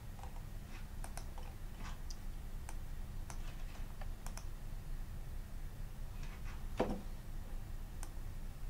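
Faint, irregular clicks and ticks from working a computer, one a little louder about seven seconds in, over a low steady hum.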